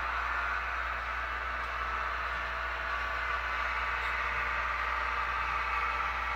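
Synthesized diesel prime mover sound from a SoundTraxx Tsunami 2 decoder in an HO-scale GE 70-ton switcher, played through the model's small speaker as the locomotive runs. The engine sound holds steady with a low hum underneath.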